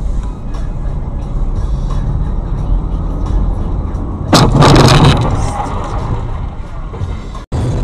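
Dash-cam recording of a car on the road: steady low road and engine rumble, with a loud, sudden crash about four seconds in lasting under a second. The sound cuts out briefly near the end.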